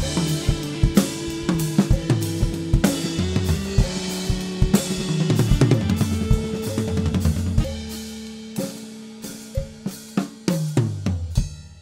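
Acoustic drum kit played along with a backing song: busy snare, bass drum and cymbal strokes. About eight seconds in the playing thins to a few separate hits as the song winds down, and the sound dies away at the end.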